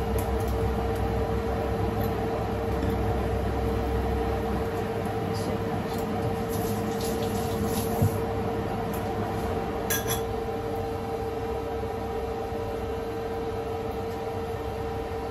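A kitchen appliance running with a steady hum, while dishes are handled: a tap about eight seconds in and a bright glassy clink about two seconds later.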